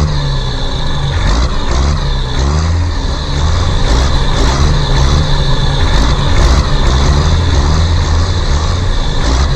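A motor or engine running continuously, a pulsing low rumble with a steady high whine over it.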